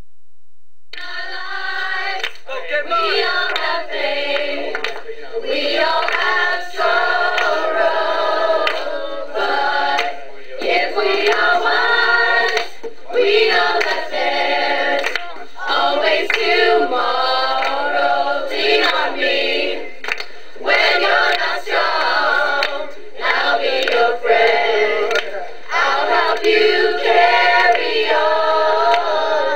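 Choir of mixed voices singing a musical number, coming in about a second in and moving phrase to phrase with short breaks.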